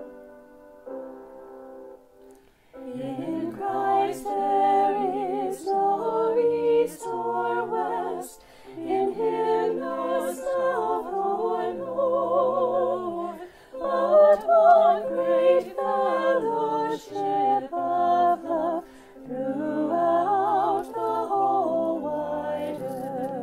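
A small mixed group of women's and men's voices singing a hymn together with vibrato. A few soft keyboard notes come first, and the voices enter about three seconds in.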